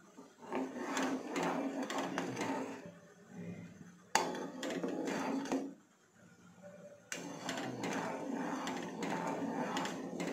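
A steel ladle stirring and scraping around a nonstick pot of hot, frothing milk, in three spells of rapid scratching with short pauses between.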